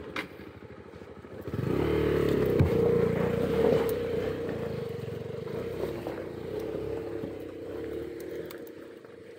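Hero Xpulse 200 4V's single-cylinder engine revving up about a second and a half in and held high while the rear wheel spins in mud on a steep slope, slowly easing off towards the end.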